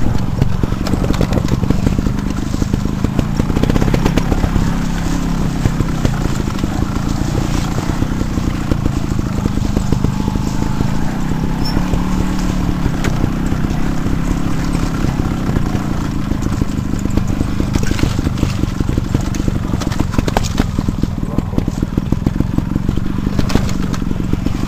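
A bike ridden over a rough, rooty forest singletrack, heard from a camera mounted on the rider or bike. There is continuous rattling and jolting over the ground, with a steady low hum underneath that wavers slightly.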